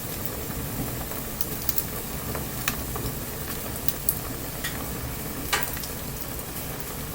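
Wood bonfire crackling: a steady hiss with scattered sharp pops and snaps, about ten of them, the loudest about five and a half seconds in.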